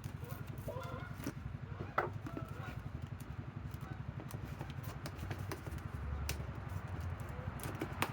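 Cardboard box being torn open and handled: scattered crinkles and knocks, with a sharper knock about two seconds in and another near the end, over a steady low pulsing hum. Faint goose honks come about a second in.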